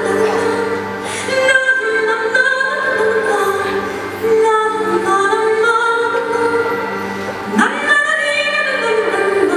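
Music with a woman singing a slow, flowing melody over a steady drone.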